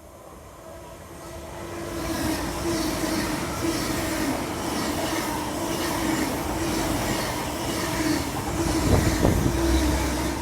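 Great Western Railway Class 800 IET, a bi-mode train running on its diesel engines, passing through the station. Its sound builds over the first couple of seconds into a steady hum with a regular clatter of wheels on the rails, and is loudest near the end.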